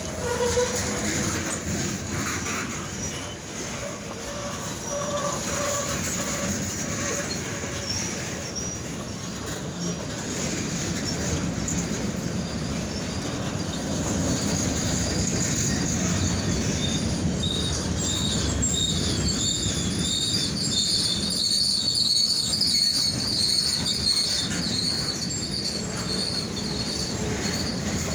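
Freight train cars rolling past with a continuous rumble of wheels on rail. Their steel wheels squeal on the rails in high, wavering tones, louder through the second half.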